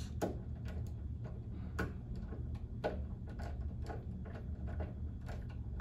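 Phillips screwdriver driving a screw to fasten a pinball topper to the cabinet's backbox, giving a dozen or so light, sharp clicks at irregular intervals. A steady low hum runs underneath.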